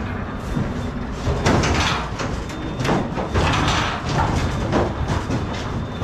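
Cattle moving inside a steel livestock trailer during loading: hooves clattering on the metal floor and irregular knocks and scrapes against the slatted steel sides.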